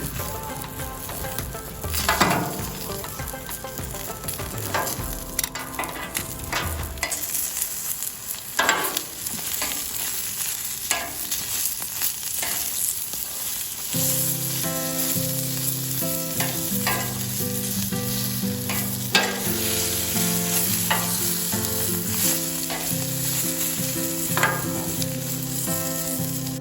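Green chilies sizzling in olive oil on a Blackstone flat-top griddle as their skins blister, a steady frying hiss broken by occasional sharp clicks and scrapes.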